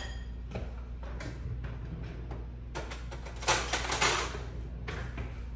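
A kitchen drawer sliding open and shut with a rattle of cutlery while another spoon is fetched. It lasts about two seconds, starting just under three seconds in, with two louder knocks. Otherwise a faint steady hum of the room.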